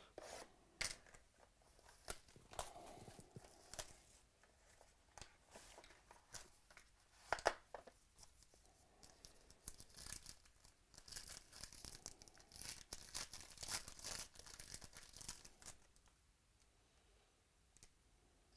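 Hands tearing open the wrapping on a box and foil pack of 2017 Panini Origins football cards: tearing and crinkling of the wrapper with scattered sharp clicks and rustles. The foil crinkling is densest in the latter half and gives way to soft sounds of the cards being handled near the end.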